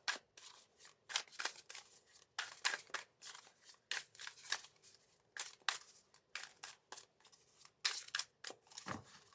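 A deck of tarot cards being leafed through by hand, card by card: a series of short, crisp flicks and slides of card against card, a few each second at an uneven pace.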